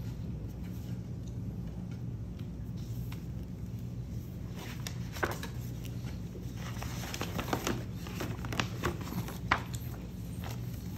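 A hardcover book and its paper and cardboard packaging being handled: scattered crinkles, rustles and small taps, mostly in the second half, the sharpest about three quarters of the way in, over a steady low hum.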